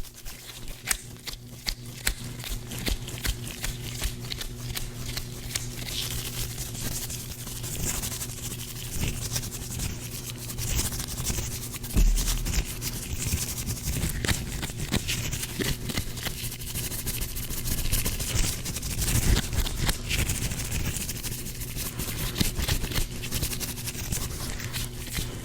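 Gloved hands rubbing and scraping close to the microphone, making a dense run of small crackles, with one louder low thump about twelve seconds in.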